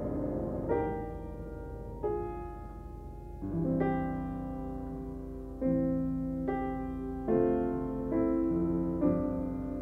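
Upright piano playing a slow passage of held chords, a new chord struck roughly every second and left to ring.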